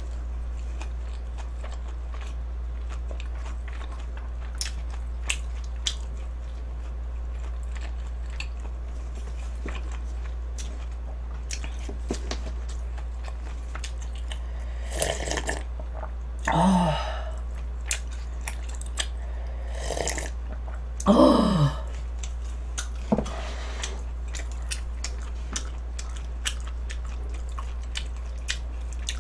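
Close-miked eating: chewing and biting on cup noodles and spicy bulgogi, with many small clicks, over a steady low hum. About halfway through come two louder drawn-out mouth sounds with a falling pitch as broth is sipped from the noodle cup, the second the loudest.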